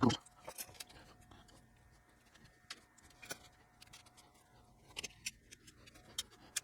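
Light, irregular clicks and taps of small metal screws and tools being handled on a workbench, a dozen or so short ticks spread unevenly.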